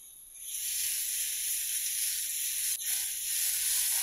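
Ginger-garlic paste frying in hot oil with cumin seeds in a frying pan: the sizzle swells up about half a second in and then holds steady. One short click comes a little before the end.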